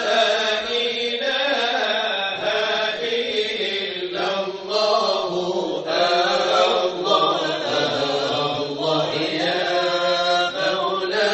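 A nasheed plays: vocal chanting in long, held, ornamented melodic lines, with no beat or percussion.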